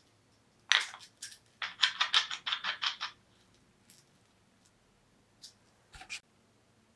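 Steel threaded bolt being pushed and twisted through the hub of a hook-and-loop sanding backing pad: a quick run of dry scratches as the threads rasp against the hub, with a few light clicks near the end.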